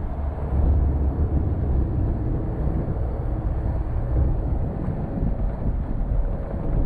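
A small open boat under way, its motor running steadily, with wind buffeting the microphone.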